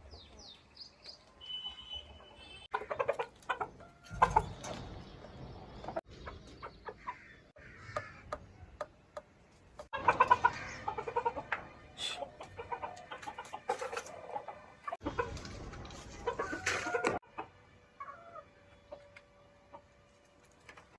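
Chickens clucking in a series of irregular bursts, with a few sharp knocks in between.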